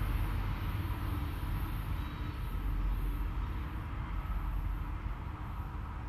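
BNSF diesel-electric locomotive running close by: a steady deep engine rumble with track noise, slowly getting quieter.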